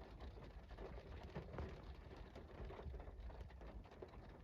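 Light rain falling, faint, with many small irregular ticks of individual drops landing.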